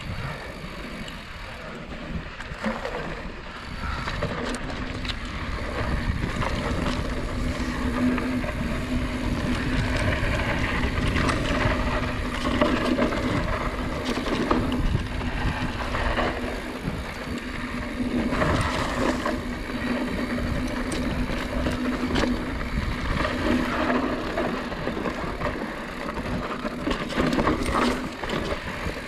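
Mountain bike riding a rough dirt trail: tyre noise and rattling knocks over the ground, with wind rushing over the microphone.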